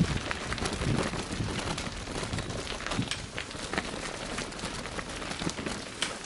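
Bicycle tyres rolling slowly over a gravel lane: a steady crunching crackle full of small clicks.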